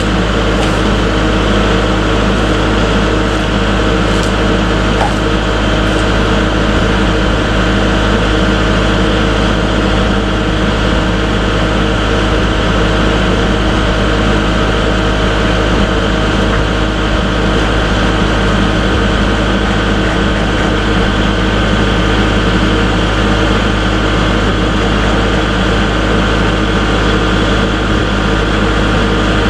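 A diesel tractor engine running steadily under a load lifting, with an even, unchanging drone.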